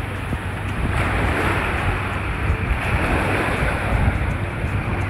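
Small waves washing up onto the sand at the water's edge, with wind rumbling on the microphone.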